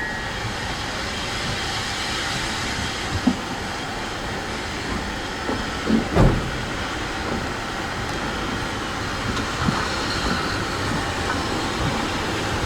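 Heritage steam railway train running along the track: a steady rumble of wheels on rail with a few louder knocks, the loudest about six seconds in.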